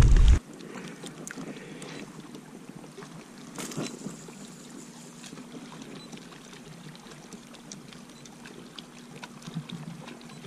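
A short splash of a hand in the lake water, cut off after half a second, then soft lapping of small waves against the boat, with a few faint clicks.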